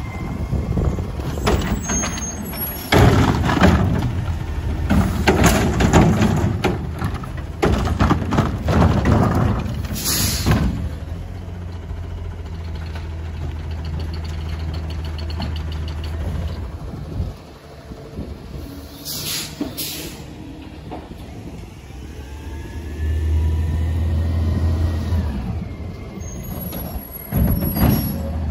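Front-loading garbage truck with a cart-tipping can on its forks: the diesel engine runs throughout and surges for a few seconds about two-thirds of the way through. Trash carts clatter and bang, mostly in the first third, and the air brakes hiss sharply twice, about ten seconds in and again around twenty seconds in.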